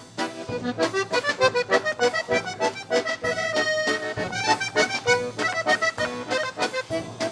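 Background music: an accordion tune played in quick, evenly paced notes.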